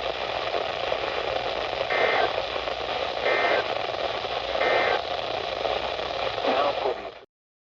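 Weather radio receiver hissing with static, broken by three short, identical electronic data bursts about a second apart: the EAS/SAME end-of-message code that closes the alert. The audio cuts off abruptly near the end.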